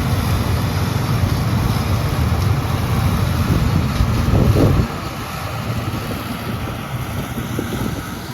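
John Deere 7720 combine running at harvest, a steady low rumble under heavy wind buffeting on the microphone. It swells briefly about four seconds in, then drops a little and carries on.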